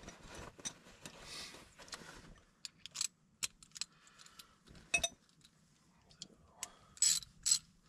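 Metal hand tools clinking and clicking, with scattered sharp clinks and two louder ones near the end, as someone handles a 10 mm wrench for the battery terminals.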